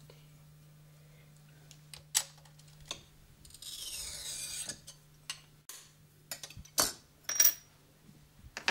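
Small pieces of cut coloured glass clicking as they are set down and handled on the glass top of a light table, with a short rubbing scrape about four seconds in; a faint steady low hum underneath.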